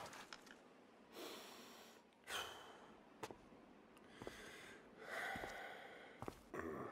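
A few soft, breathy snorts and sighs, one after another, with some faint clicks.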